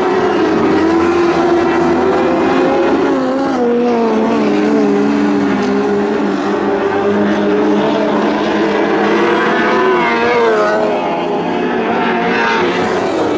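Lightning sprint cars racing on a dirt oval: several engines running hard at once, their pitch rising and falling as the cars accelerate, lift and pass.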